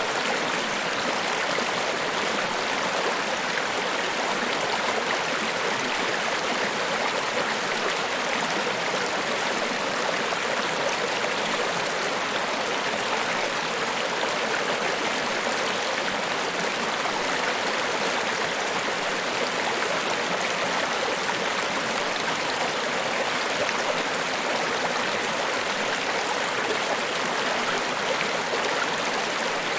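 Niagara Falls waterfall: a steady, unbroken rush of falling water, even in level throughout, with most of its energy in the middle and upper range and little deep rumble.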